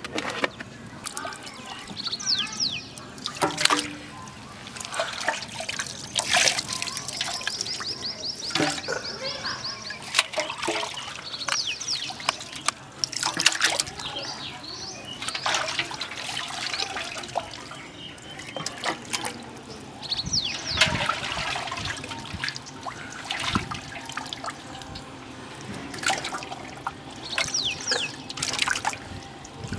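Water sloshing and trickling in a large cooking pot as leaves and whole raw chickens are put in, with scattered knocks and clatters.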